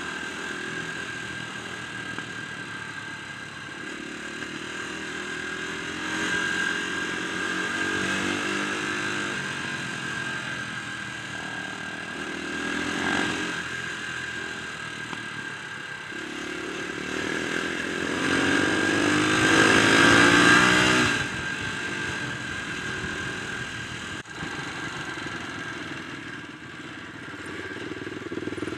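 Dirt bike engine heard from the bike itself on the move, the rider opening and closing the throttle several times; the longest, loudest pull builds for a few seconds about two-thirds of the way through, then the throttle is shut abruptly.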